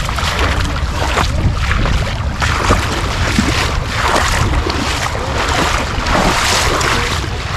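Rushing river current with wind buffeting the microphone, a steady loud rumble and hiss.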